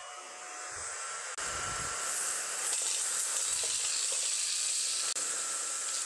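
Corvan K9 Pro cordless stick vacuum running in auto mode on a hard floor, a steady rush of air with a high whine, while it sucks up a small pile of oats, beans and glitter. It grows louder about a second and a half in, as auto mode raises the suction power to the amount of debris.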